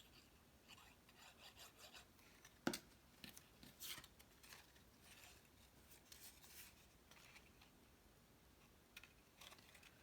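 Faint rubbing and rustling of cardstock being folded and pressed by hand, with a sharp tap about two and a half seconds in.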